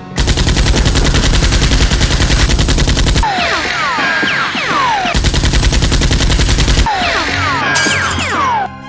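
Automatic-gunfire sound effects for a Nerf blaster battle: two rapid bursts, the first about three seconds and the second about two, each followed by a spell of quick falling whistling sounds, over background music.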